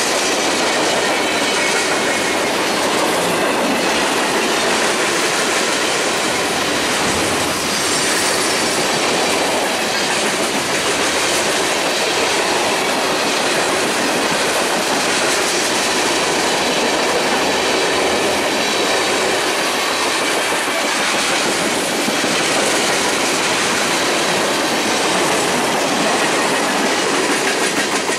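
Freight train's tank cars rolling past close by, steel wheels on the rails making a loud, steady noise with a rhythmic clicking over the rail joints.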